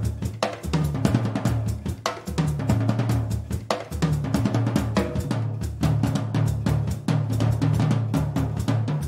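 Jazz drum kit played in a busy, fast groove of snare, bass drum, rimshots, hi-hat and cymbals over a low, steady bass line.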